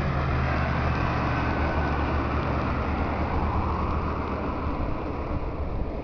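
Road traffic passing close by on a highway: a motor scooter and a car go past, their running noise fading over the last couple of seconds.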